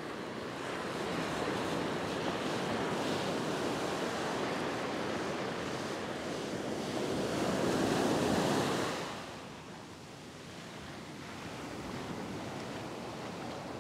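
Ocean surf breaking and washing up a sandy beach: a steady rush that swells to its loudest about eight seconds in, then drops away quickly.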